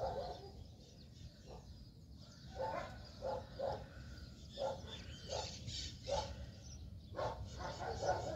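Short animal calls repeated in small groups, several to a second, with fainter high bird chirps around the middle.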